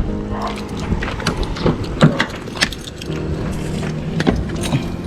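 A vehicle's engine idling with a steady low hum, overlaid by repeated short clicks, knocks and rattles of things being handled, such as keys.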